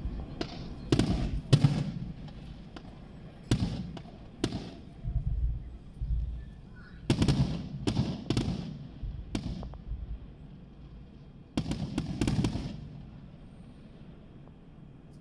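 Aerial firework shells bursting overhead: a series of sharp bangs in irregular clusters, each trailed by a low rolling echo, with a quick run of several bangs near the end.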